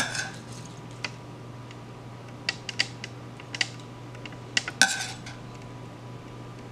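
Metal tongs clinking and scraping against a stainless steel pan as seared ribeye steaks are lifted out onto a plate. There are several sharp clinks a second or so apart, the loudest two just before five seconds in.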